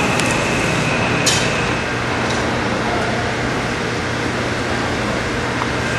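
Steady machinery noise with a faint constant high whine and low hum, and one short click about a second in.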